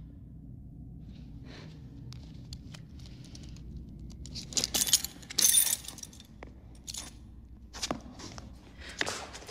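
Rustling, scraping and small clinking handling noises over a low steady hum, with a loud flurry of rustling about halfway through and a few sharp clicks after it.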